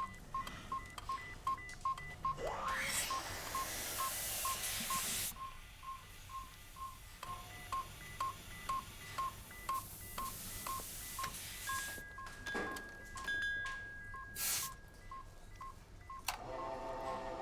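Operating-theatre patient monitor beeping steadily, a short high beep about two and a half times a second. A rising whoosh comes about two and a half seconds in, with stretches of hiss, a held higher tone in the middle, and a run of stacked electronic tones starting near the end.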